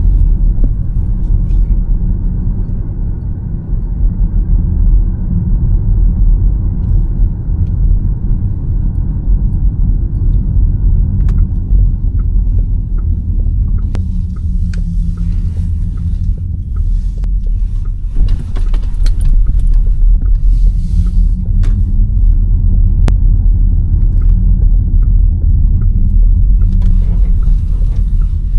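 Škoda Elroq electric car driving, heard as a steady low rumble of road and tyre noise with no engine note.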